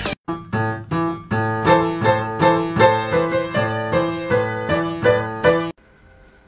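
Background music: a keyboard melody of short, sharply struck notes, about two a second, that stops suddenly near the end, leaving only faint room sound.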